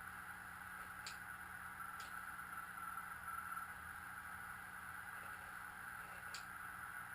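Receiver audio from a Frog Sounds QRP CW transceiver tuned to 7.023 MHz in the 40 m band: steady band hiss through the narrow audio filter, with a faint Morse code tone coming and going and a few sharp clicks of static.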